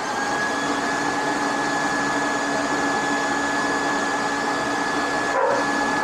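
Electric leaf blower running steadily at full speed: a loud, even rush of air with a steady high motor whine.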